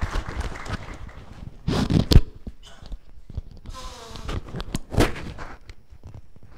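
Microphone handling noise: rustling and knocks, with two loud thumps about two and five seconds in and a short squeak between them.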